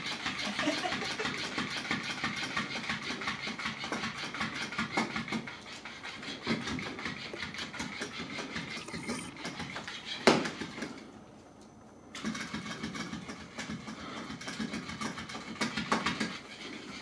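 Electric flopping fish cat toy running: its small motor whirs with a fast rattling tap as the fabric fish flaps against a wooden floor. There is a sharp knock about ten seconds in, and the motor stops for about a second just after.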